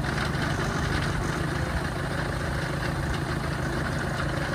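Engine of a small tracked rice-hauling carrier running steadily at idle.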